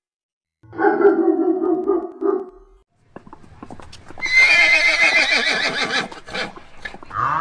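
A horse whinnying: a shorter, lower call about a second in, then one long, high, quavering whinny from about four seconds in.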